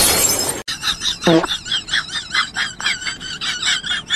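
Dubbed gunfire sound effect: a loud blast of noise that cuts off suddenly. Then comes fast, high chirping with a wavering pitch, about four or five chirps a second.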